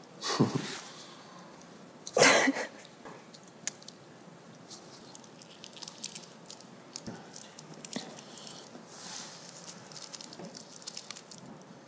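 Two short, louder noises near the start, then soft crinkling and small clicks from a small object being handled at a table.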